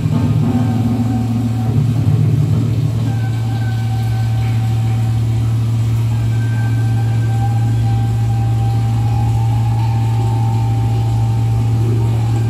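Electronic sound instruments playing a loud, steady low drone, with thin, held higher tones coming and going above it.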